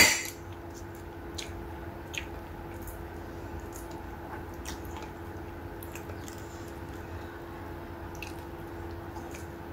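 A sharp clink at the very start, then faint soft squishing and small clicks of fingers handling food and dipping it into sambal, over a steady faint hum.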